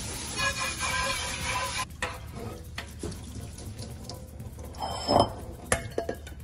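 Cold tap water running into a stainless steel sink over a colander of par-boiled rice being rinsed, shutting off abruptly about two seconds in. Then a metal mesh colander knocks and clinks against the sink and a bowl as it is shaken and drained, a few sharp knocks, the loudest just after halfway.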